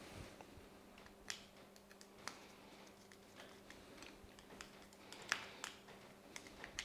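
Faint, scattered small clicks and ticks of a flathead screwdriver turning the cord-clamp screws of a plastic 13 amp plug, tightening the clamp down onto the flex's outer sheath.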